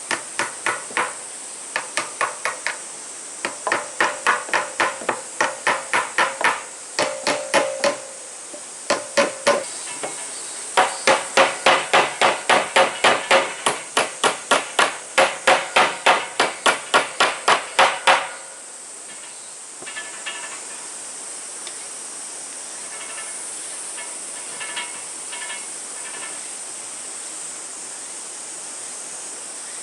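Hammer striking wood on a deck repair, in runs of sharp blows about two a second with short pauses between runs, stopping about 18 seconds in. A steady high hiss carries on underneath and is left alone after the hammering stops.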